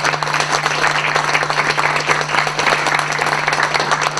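Audience applauding: many hands clapping in a dense, even patter, over a steady low hum.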